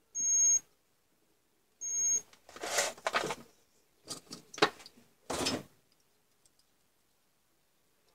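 Digital multimeter's continuity buzzer beeping twice, each beep about half a second long, as the probes touch the Dremel 3000's stator field winding: the winding has continuity. Then several short bursts of handling noise as the motor's stator housing is picked up and turned over.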